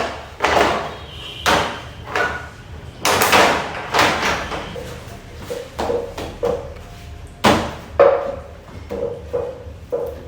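A series of irregular knocks and clanks, about a dozen, some leaving a short ringing tone.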